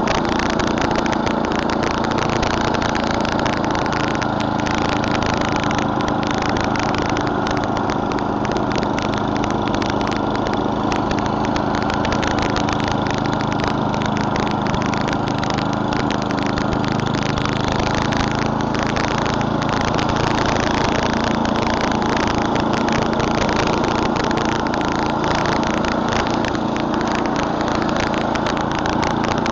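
Murray Select snowblower's 11 hp Tecumseh single-cylinder engine running steadily at an even speed.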